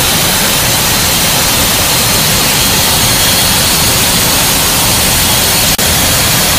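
Loud, steady rush of wind and jet engine noise through the open paratroop door of a C-17 Globemaster III in flight, with a momentary break in the sound near the end.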